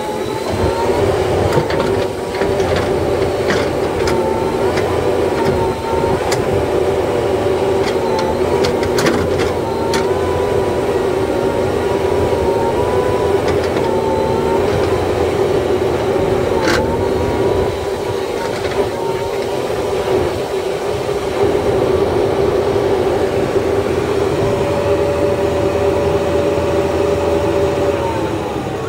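JCB 3DX Super backhoe loader's four-cylinder diesel engine running under load as the backhoe arm works a large log, its pitch wavering slightly with the load and falling away near the end. Several sharp metallic knocks from the bucket and linkage come through over it.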